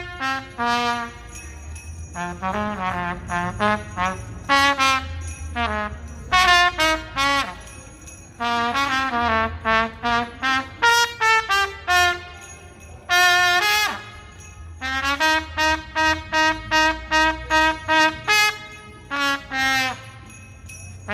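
A street trumpet playing a Christmas tune in phrases of quick notes, with short pauses between phrases.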